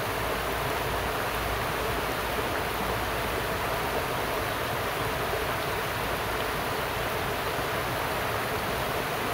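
River water rushing over rocky shallows and rapids, the river running high after days of rain: a steady, even noise.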